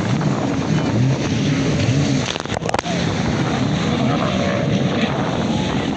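Racing jet ski engines running hard, their pitch rising and falling as the craft pass and turn, over a steady rush of churning water and wind. A short burst of sharp clicks a little over two seconds in.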